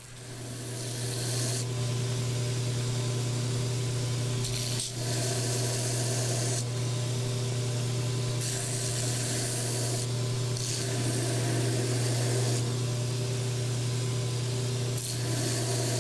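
Grizzly G1015 knife belt sander running with a steady motor hum while a mild-steel pommel is ground against the belt. The hiss of steel on the abrasive comes and goes over several passes of about two seconds each.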